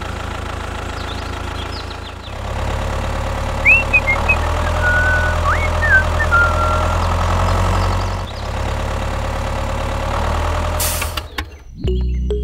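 Tractor engine running with a steady low rumble, its note shifting about two seconds in and again near eight seconds. A few short high chirps sound midway, and a brief hiss comes just before the engine cuts off near the end.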